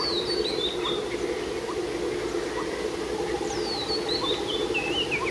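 A bird singing a run of high chirping notes that step down in pitch, once at the start and again about three and a half seconds in, over a steady low hum.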